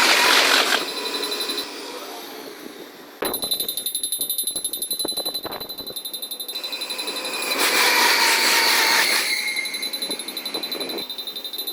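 Japanese railway level-crossing warning bell ringing in rapid, even pulses, sped up. It breaks off about two seconds in and starts again about three seconds in. A louder rushing pass with a slightly falling whine comes around eight seconds in, fitting a train going over the crossing.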